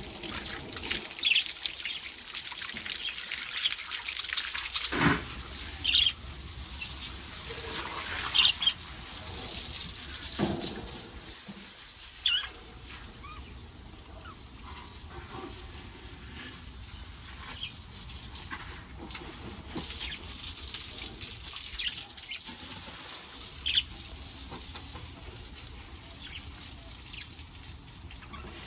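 Small pet parrots chirping in short, scattered calls over a steady hiss of water, as their water is changed and the birds play in it.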